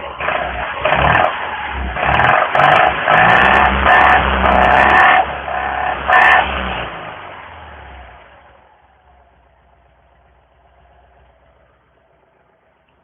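Citroën 2CV's air-cooled flat-twin engine and exhaust revved in a string of quick throttle blips. It then falls back over a couple of seconds to a faint idle.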